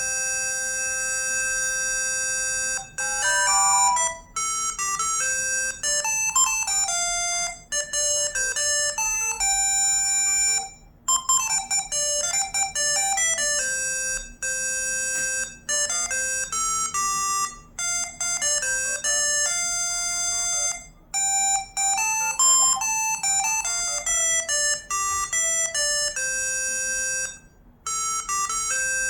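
ZTE V617 mobile phone ringtones: bright, high-pitched electronic melodies. A held chord opens, followed by quick changing notes with several short breaks between phrases.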